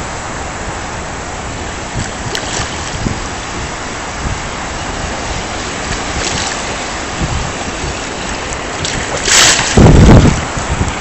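Waves washing in shallow surf, a steady rush of water. About nine seconds in come loud rumbling buffets on the microphone.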